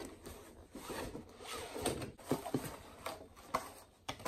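Plastic packaging rustling and crinkling as a curtain decoration is pulled out and handled, with a few sharp clicks.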